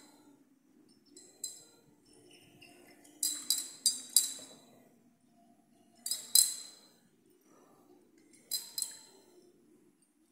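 Glass conical flask clinking in short clusters, every two to three seconds, as it is swirled under a burette during a titration.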